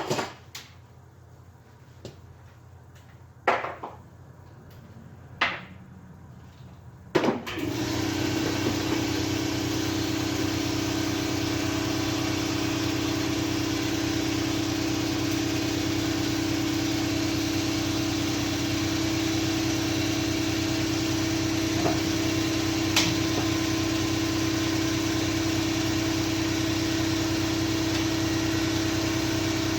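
A few sharp knocks and clicks, then about seven seconds in a motor starts up and runs on with a steady hum and a constant tone.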